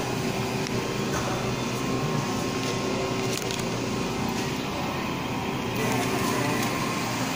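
Supermarket room noise: a steady hum of refrigerated cases and air handling, with a faint held tone over it.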